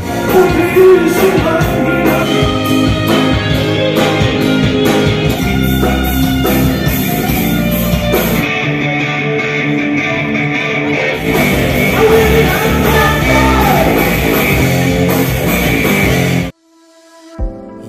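Rock band playing live: electric guitars, bass and drum kit together. The music cuts off abruptly near the end.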